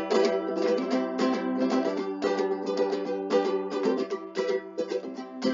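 Ukulele strumming chords in a steady rhythm, starting sharply right after a count-in: the instrumental intro before the singing comes in.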